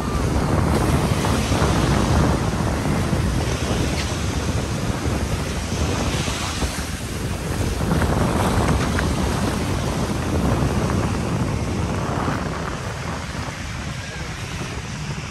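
Surf washing onto a beach, rising and falling gently, with wind rumbling on the microphone.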